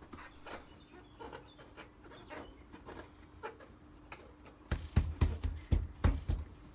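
Plastic windscreen-pillar trim in a van cab being worked back into place by hand: faint clicks and rustles, then a quick run of six or seven dull thumps near the end as it is pressed home.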